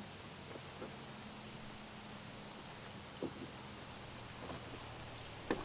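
Insects, crickets, drone steadily in a high thin band, with a few faint soft knocks and rustles from a wooden canoe being lifted off its stand. A brief, louder sound comes near the end.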